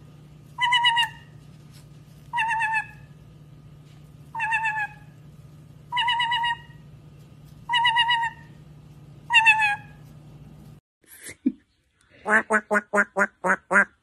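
White-bellied caique giving the same wavering call seven times, each about half a second long and roughly every second and a half. Near the end an African grey parrot rapidly repeats the word "work" about eight times.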